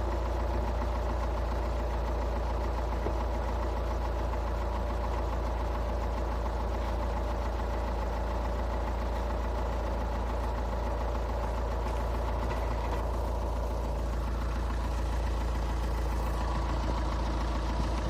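Škoda Octavia A5 2.0 TDI 125 kW four-cylinder diesel idling steadily with a knock when cold.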